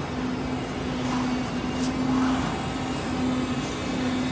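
CNC digital leather cutter running: a steady machine drone with a pitched hum that breaks off and resumes every half second or so, and a couple of short hisses about one and two seconds in.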